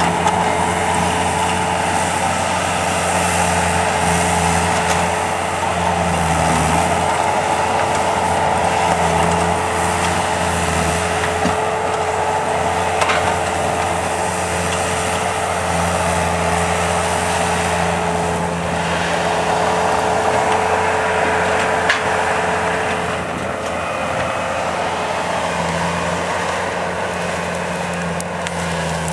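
Skid loader engine running steadily, with a constant whine over the engine note and a few sharp clicks now and then.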